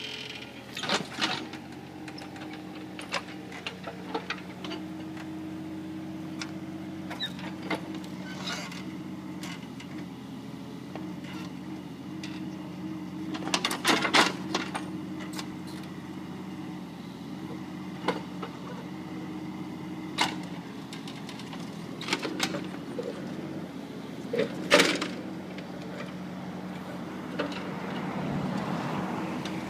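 Mini excavator engine running steadily under work, with scattered sharp knocks and clanks, a cluster about 14 seconds in and another near 25 seconds.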